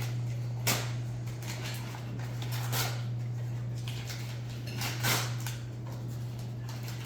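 Wrapping paper and packaging rustling and tearing, with three louder rips about two seconds apart, over a steady low hum.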